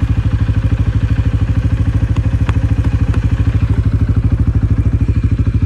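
Quad bike (ATV) engine idling with a quick, even putter that stays steady throughout.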